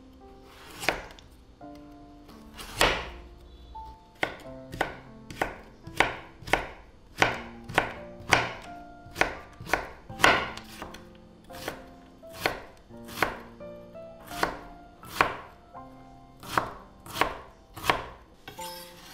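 Chef's knife cutting a carrot on a bamboo cutting board: sharp knocks of the blade through the carrot onto the wood, about one to two a second and unevenly spaced, as the carrot is sliced into strips and then diced.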